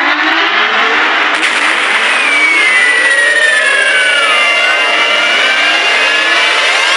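Harsh, loud emergency-alert alarm noise: a dense blare laced with sliding tones, one falling in pitch midway and several rising near the end.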